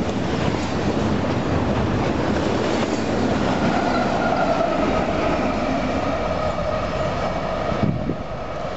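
Double-stack intermodal container cars of a freight train rolling past, a steady rumble and clatter of wheels on rail, with a thin steady squeal joining about halfway in. Near the end the last car goes by and the sound drops away.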